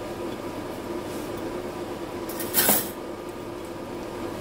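A glass spice jar of ground black pepper being handled and opened, with one short scraping rattle about two and a half seconds in, over a steady faint hum.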